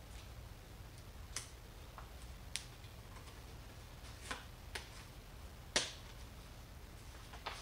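Scattered sharp clicks and light taps of hands handling small objects at the top of a painted cabinet, about half a dozen in all, the sharpest about three-quarters of the way through, over a low steady hum.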